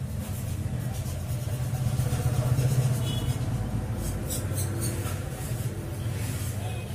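An engine running steadily in the background, with a few light metallic clicks about four seconds in as steel piston rings are handled.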